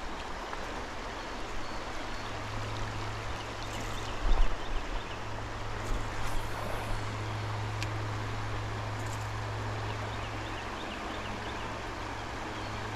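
Creek water running steadily over riffles, with a steady low hum underneath and a few dull thumps about four seconds in.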